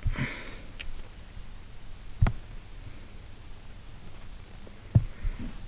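A short sniff at the very start, then a few isolated sharp clicks, the loudest about two seconds in, over faint room tone.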